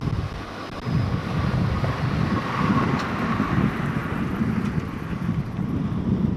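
Wind buffeting the microphone over a four-wheel-drive vehicle fording a wide river, with a rushing of water that swells around the middle.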